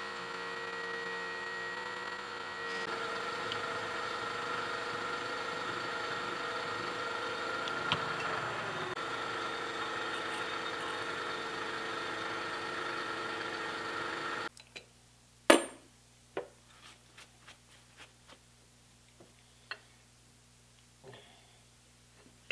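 A drilling machine running steadily while a small bit drills a through hole in a jointer casting, a machine sound of several held tones. About fourteen seconds in it cuts off abruptly. A second later comes a loud clunk, then light clicks and knocks as the metal casting is handled on an aluminium fixture plate.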